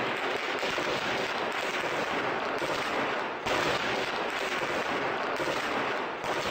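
Sustained rapid automatic gunfire, a dense unbroken rattle, with a sudden change in the sound about three and a half seconds in.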